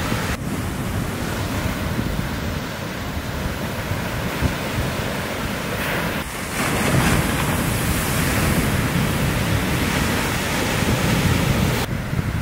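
Small shore-break waves breaking and whitewater washing in, with wind buffeting the microphone. The surf gets louder about six and a half seconds in.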